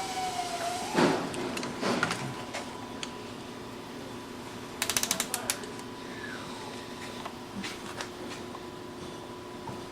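Hand tools on metal engine parts: two clanks, then a quick run of ratchet-wrench clicks about halfway, over a steady faint hum.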